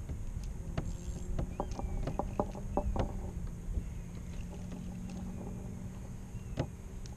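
Water lapping against plastic kayak hulls with wind on the microphone and a steady low hum, broken by a quick run of sharp clicks and knocks about one and a half to three seconds in, and one more near the end.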